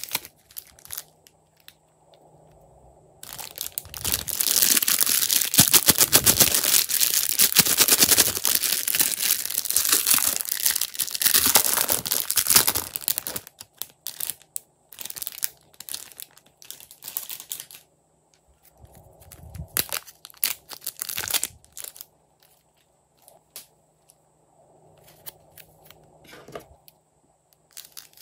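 Thin plastic bags around soft clay blocks crinkling as they are handled. The crinkling is dense for about ten seconds, starting a few seconds in, then thins to scattered crinkles and ticks. Near the end, scissors cut into a bag.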